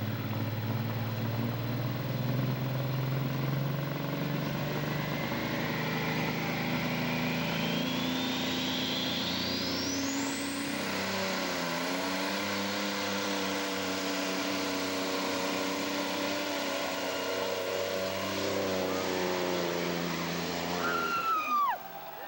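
Diesel semi-truck engine pulling hard under full load against a weight-transfer sled, with a high turbocharger whine that rises steadily over the first ten seconds or so. The engine note drops at about eleven seconds in and holds, then the engine cuts off suddenly near the end, followed by a few shouted calls.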